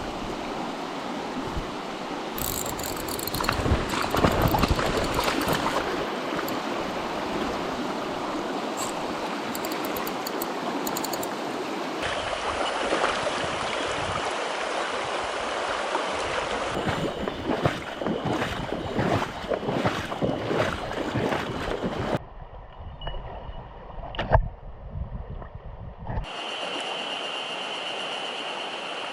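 Mountain stream water rushing steadily, heard in several edited takes that change abruptly. In a quieter stretch near the end there is a single sharp knock.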